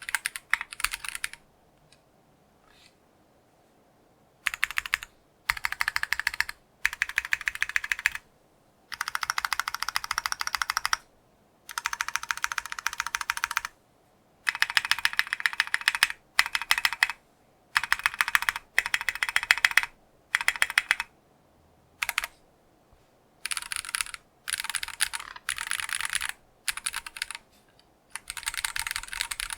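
Typing on a mechanical keyboard with factory-lubed Geonworks Clear switches, ePBT keycaps and an aluminium plate; the spacebar sits on a Cherry MX Hyperglide Black switch. Quick runs of keystrokes come in bursts of one to two seconds with short pauses between them, and a longer pause about two seconds in.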